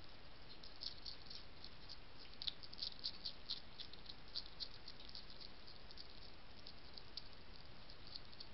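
European hedgehog eating, a quick irregular run of small crisp clicks and crunches, thickest two to four seconds in, over a faint steady hiss.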